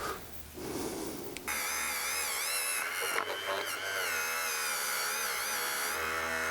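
Dremel rotary tool with a wire wheel starting up about a second and a half in and running at high speed. Its whine wavers in pitch as the wire brush is pressed against rust and caked grass-clipping buildup on a Briggs & Stratton engine part.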